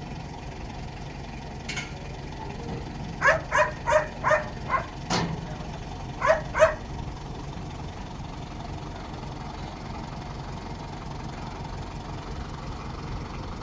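A dog barking: a quick run of about five short barks, one more, then two more, over a steady low hum.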